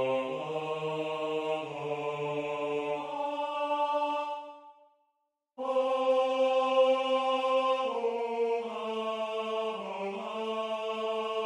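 Computer-synthesized choir voices from notation playback, singing a slow four-part SATB choral piece in long held notes. About four seconds in the chord fades away, and after a second of silence the voices come back loud on an accented chord.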